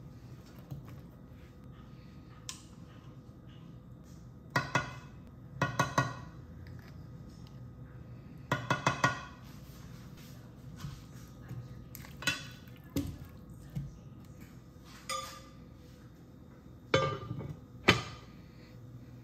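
Kitchenware clinking and tapping against a nonstick skillet while ingredients go in: several clusters of three or four quick taps, then a few single knocks. Near the end, two louder knocks as the lid is set on the skillet.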